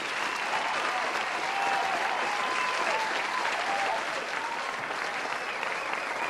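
Audience applauding steadily, a dense run of clapping with faint voices over it.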